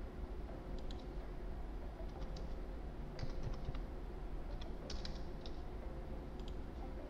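Computer keyboard keys tapped in short irregular runs as a number is typed in, over a faint steady hum.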